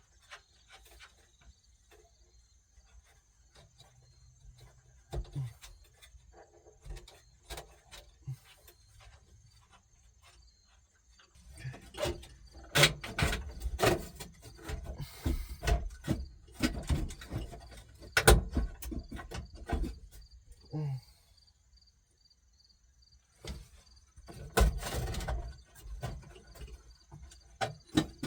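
Clicks, knocks and rustling of hands working behind a pickup's dashboard, freeing the old radio and its wiring connectors. The handling is sparse at first, then busy for several seconds from about a third of the way in, and again briefly near the end.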